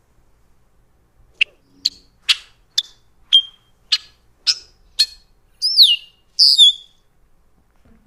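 Male red-winged blackbird giving ten different alert calls one after another, about half a second apart: eight short, sharp chuck-like notes, then two longer whistled calls that fall in pitch.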